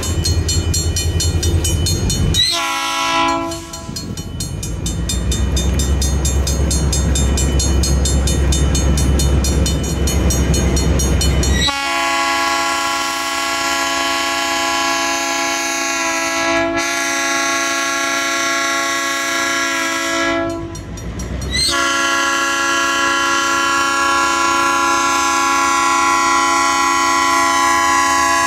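Diesel freight locomotive horn sounding for a grade crossing: a short blast a few seconds in, then long, loud chord blasts from about halfway through, broken briefly twice. Before the long blasts, a crossing bell dings rapidly over the locomotives' low engine rumble.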